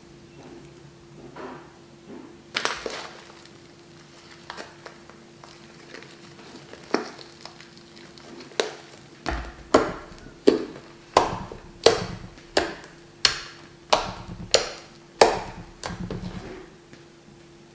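Blue fluffy slime made from toilet paper, glue and shaving foam being stretched and poked with fingers, giving sharp popping crackles as trapped air bursts. A few scattered pops at first, then about halfway a steady run of about a dozen, roughly two a second and a half.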